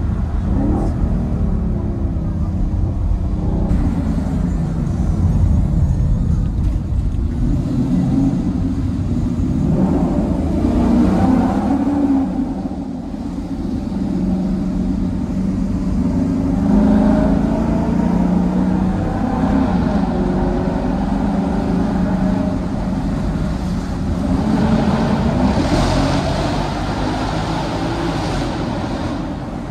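Ford Mustang GT's 5.0-litre V8 with a Ford Performance exhaust, heard from inside the cabin while driving, its note swelling and falling back several times as the throttle is opened and lifted, over steady road rumble.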